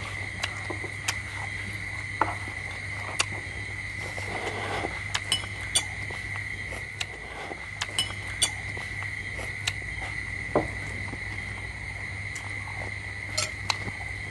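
Scattered short clicks and clinks of spoons, bowls and eggshells as balut eggs are peeled and eaten, over a steady high-pitched whine and a low hum.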